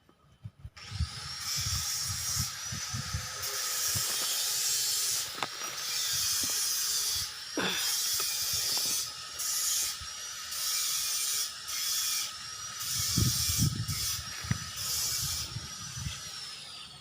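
Cicada calling: a loud, high buzzing hiss that rises in pitch as it starts about a second in, pulses in strength, and slides down in pitch as it fades near the end. Low rumbles come and go underneath.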